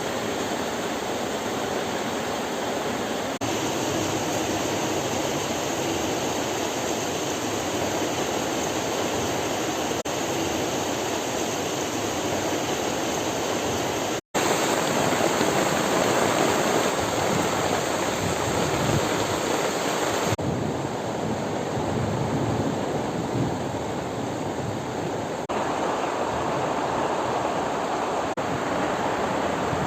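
Heavy rain pouring steadily with strong wind, a dense even hiss, with a split-second break about fourteen seconds in.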